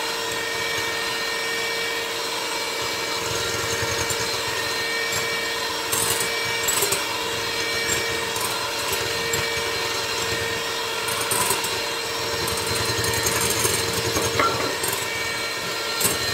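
Electric hand mixer running steadily, its beaters whipping egg whites in a glass bowl while they stiffen into meringue.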